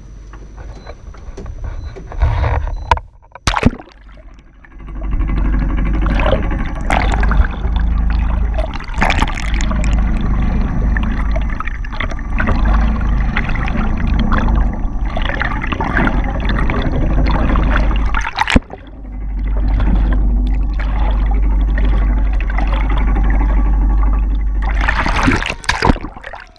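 Water rushing and gurgling around a camera in its waterproof housing as it moves underwater: a loud, muffled rush with a deep rumble. A couple of sharp knocks come about three seconds in, before the rushing begins, and it breaks off briefly past the middle.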